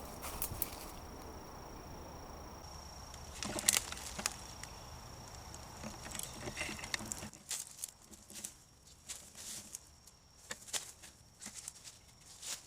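Irregular rustling and crunching of footsteps and gear moving through brush, with one sharp click about four seconds in. A faint steady high-pitched whine runs underneath and drops out about seven seconds in.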